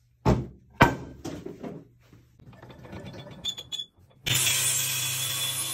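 Two loud wooden knocks as heavy boards are set down on a workbench, followed by lighter knocks and handling. About four seconds in, a table saw starts running suddenly, a steady loud hiss over a low motor hum.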